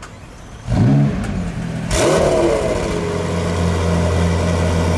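A supercar engine blipped hard twice: a quick rise in pitch about a second in, then a second rev near two seconds that falls away. It then settles into a steady low running note.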